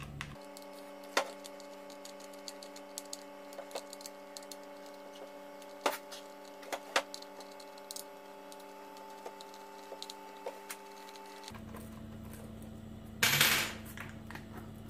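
Scattered light clicks and taps of an Allen key and screws being worked loose from the plastic sanding pad of a Parkside PMFS 200 C3 multi-function sander, over a steady drone of several held tones. About thirteen seconds in, a short louder scrape as the pad is pulled off.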